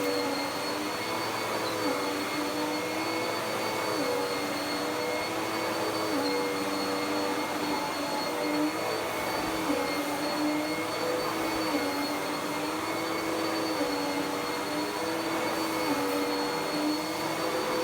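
Dirt Devil PowerMax Pet vacuum cleaner running steadily, its motor tone dipping briefly about every two seconds as it is worked back and forth.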